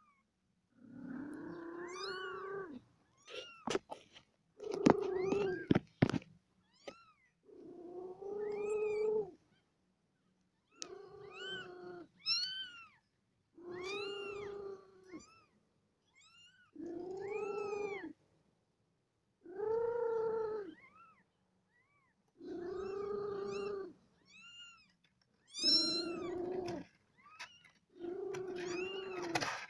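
A cat meowing over and over, about ten long calls each lasting a second or more, coming every two to three seconds. A few sharp clicks fall in between, around four to six seconds in.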